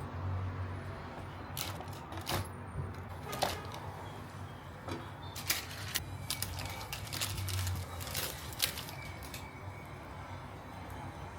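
Light clicks and knocks of objects being handled, scattered irregularly over a steady low hum.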